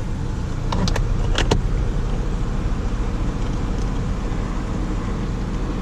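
Steady low hum of a running vehicle, with a few light clicks about a second in, likely from a hand tool working a screw.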